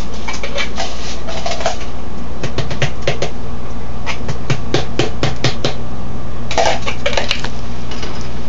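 Wire whisk clattering against the side of a plastic mixing bowl while beating an egg mixture: an irregular run of quick clicks and taps.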